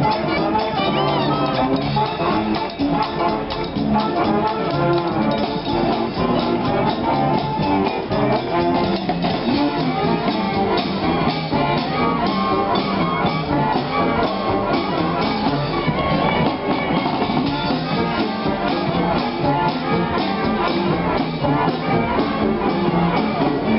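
Street brass band playing: horns over a steady drum beat.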